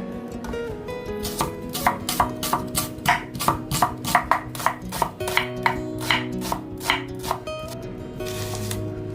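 Kitchen knife chopping on a cutting board, about three even strokes a second, starting about a second and a half in and stopping about two seconds before the end, over background music.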